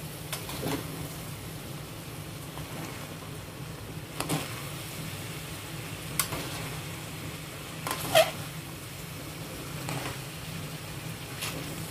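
Pancit canton noodles and cabbage sizzling in a frying pan while being tossed and stirred, with scattered clinks and scrapes of the spatula and tongs against the pan, the sharpest about eight seconds in. A steady low hum runs underneath.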